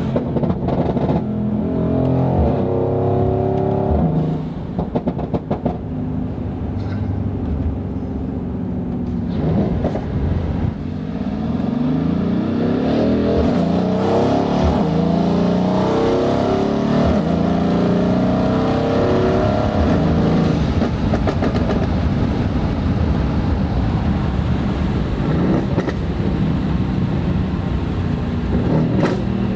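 Tuned Mercedes-AMG GLC63 S twin-turbo 4.0-litre V8 pulling hard, its revs climbing and dropping again and again through the gear changes. Sharp exhaust crackles pop between pulls, a cluster a few seconds in and more near the end.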